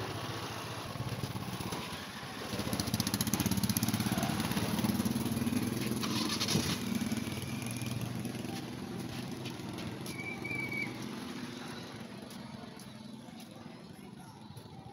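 A vehicle engine, likely a motorcycle, passing close by: it grows louder about two seconds in and fades away over the second half.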